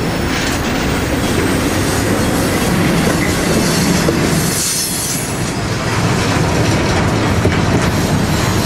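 Railroad cars rolling past on the rails in a steady, loud rumble, wheels clacking over the joints with some squealing.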